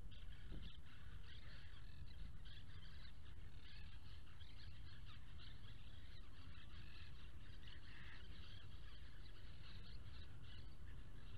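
Small birds chirping and twittering continuously in the background over a steady low rumble.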